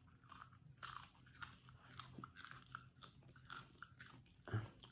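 Someone chewing popcorn: faint, irregular crunches, with a short vocal sound near the end.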